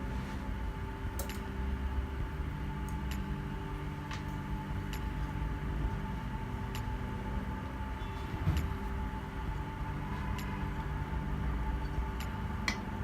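Steady machine hum with a few fixed tones and a low rumble, with scattered light clicks and taps.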